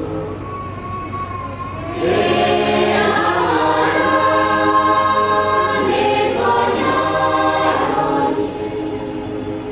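A choir singing a hymn in several-part harmony. The voices swell louder and fuller about two seconds in and drop back near the end.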